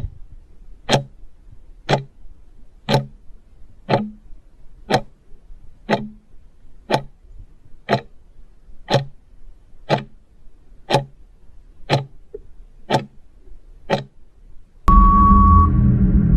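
Quiz countdown timer ticking once a second, about fifteen ticks. It ends in a loud time-up sound effect with a steady high beep.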